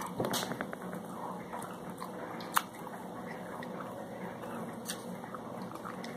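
A person chewing snow crab close to the microphone, with soft wet mouth sounds. A few sharp clicks come from picking at the crab-leg shell, the loudest about two and a half seconds in.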